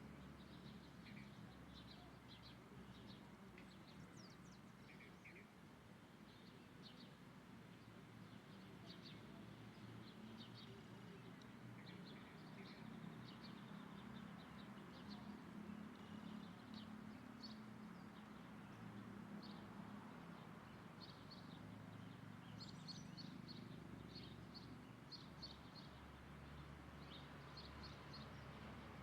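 Faint short, high chirps of small birds, scattered throughout, over a steady low background noise.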